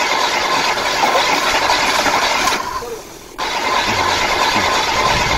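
Hard plastic toy truck wheels rolling over rough, gritty asphalt: a loud, steady grinding rattle that fades and stops for under a second about three seconds in, then starts again.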